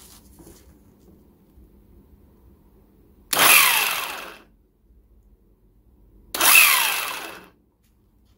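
Mplus cordless 1/2-inch impact wrench fired in two bursts of about a second each, driving a 1 1/4-inch bolt through a 2-inch socket in a Skidmore bolt tension tester. Each burst starts suddenly, and its whine falls in pitch as the tool works against the load.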